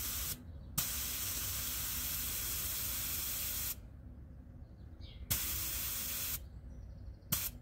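Compressed air hissing in bursts at a car tyre's valve through a tyre-inflator gun with a pressure gauge: one long hiss of about three seconds, a shorter one, and a brief one near the end. The tyre pressure, read at 2.5 bar, is being adjusted because it is too high.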